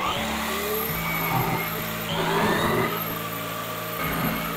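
Twin-spindle plunge dowel drill and its dust extractor running steadily, a motor hum whose pitch drops slightly about a second in.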